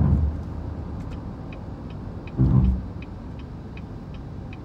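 Steady road and engine noise inside a moving SUV's cabin, with a turn signal ticking about three times a second from about a second in. Two brief, louder low sounds stand out, one at the start and one about halfway.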